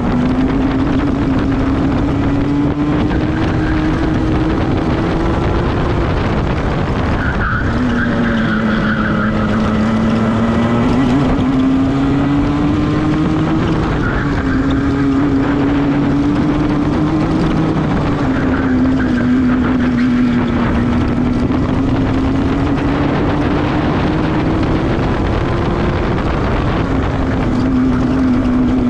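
Onboard sound of a two-stroke racing kart engine at full throttle. Its pitch climbs steadily along each straight, then falls away sharply as the driver brakes for the corners, about 7, 14, 18 and 26 seconds in.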